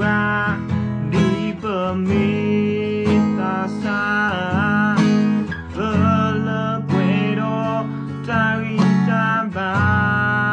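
A man singing a slow song to his own strummed Cort acoustic guitar, with steady chord strums under the voice.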